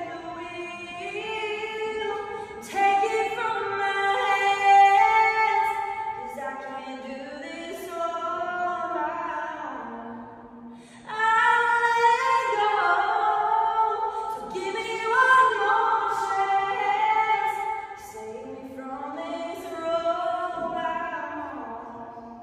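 A woman singing unaccompanied: long held notes that slide from pitch to pitch, in two phrases with a short breath-like break about ten seconds in.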